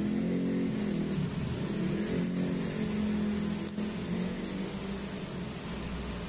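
TIG welding arc on a stainless-steel pipe joint with filler rod fed in by hand: a steady buzzing hum whose pitch wanders up and down, over a faint hiss.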